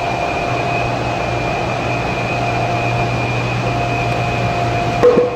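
Steady machine hum with a constant high-pitched whine, broken by two short knocks about five seconds in.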